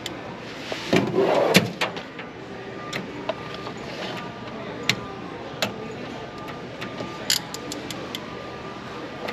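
Steady store background noise with a faint hum, a louder rustle about a second in, and several sharp clicks of handling, as an in-store coffee grinder is loaded and tried. The grinder itself does not start; it turns out not to work, apparently unplugged.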